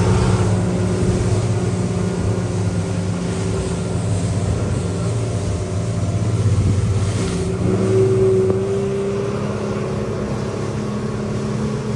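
Outboard motor of a North River Seahawk aluminium boat running steadily at cruising speed, with water rushing and spraying off the hull in choppy water.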